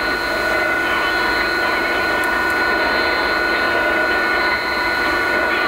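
Medium-wave AM reception on an Audi MMI Basic car radio tuned to 621 kHz: steady static and hiss with a high, steady whistle through it, and no clear programme.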